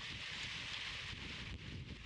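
Wind on the microphone: an uneven low rumble under a steady hiss.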